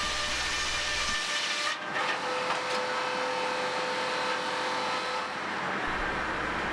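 Circular sawmill running and sawing logs: a steady mechanical noise with a faint, even saw whine.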